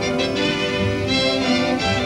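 Orchestral music led by bowed strings, with held violin notes shifting from one to the next.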